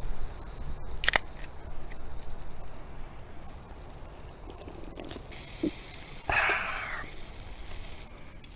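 Meat sizzling on a campfire grill, the hiss starting about five seconds in, with a sharp click about a second in and a short louder burst of noise near the end.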